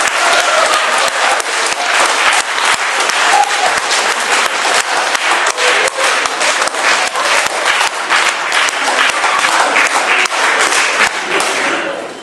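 Applause from a crowd, many hands clapping, dying down near the end.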